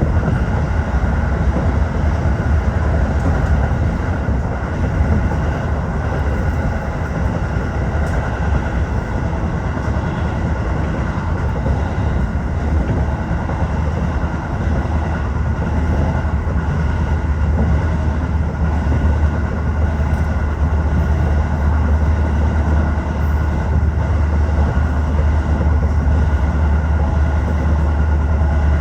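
Tokyo Metro 15000 series electric train running at speed between stations: a steady, loud rumble of wheels on rail with a low drone and a faint steady whine above it.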